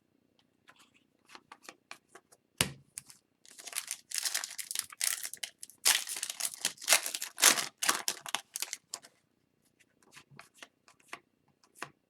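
Hockey card pack wrapper being torn open and crinkled, with a sharp tap about two and a half seconds in and a few light clicks of cards being handled near the end.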